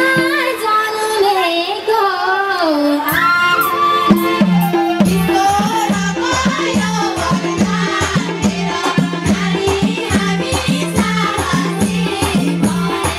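Nepali ratauli folk song, sung by women into microphones. A drum comes in about three seconds in and keeps a steady beat under the singing.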